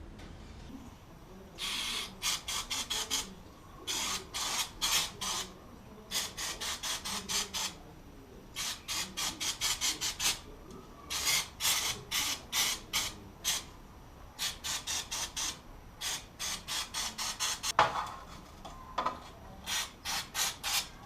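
Ratchet wrench clicking in quick back-and-forth strokes, about four a second, in runs of a second or two with short pauses, as the chain guard screws are undone. One louder knock a few seconds before the end.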